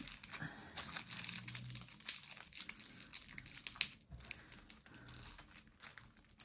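Small clear plastic bags of diamond painting drills crinkling as they are handled, in quick, irregular crackles.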